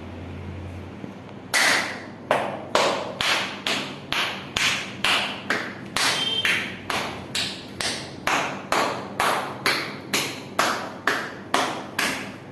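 Percussive hand massage: a masseur's hands slapping the body in a steady rhythm of about two strikes a second, starting about one and a half seconds in.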